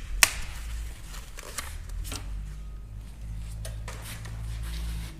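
A sharp snap about a quarter second in, then scattered clicks and rustles: side cutters snipping ties and packing material being handled, over a low steady hum.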